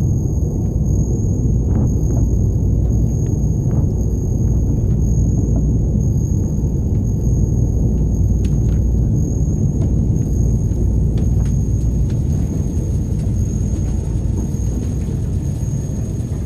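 Dark ambient drone: a dense, steady low rumble with a thin high whine above it and a few faint scattered clicks, easing off a little near the end.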